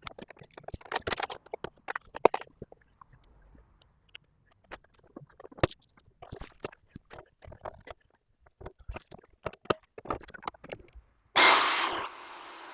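Scattered small clicks and knocks of tool handling, then about eleven seconds in a Bosch GSB 21-2 corded drill switches on suddenly and runs steadily, loudest at the start.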